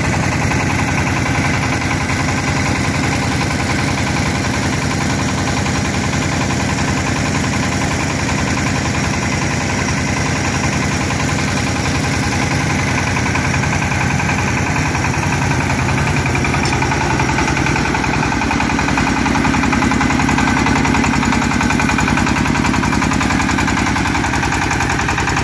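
Engine of an HF150W trailer-mounted water well drilling rig running steadily while the rig drills, with a dense, even engine pulse. Its tone shifts slightly about eighteen seconds in.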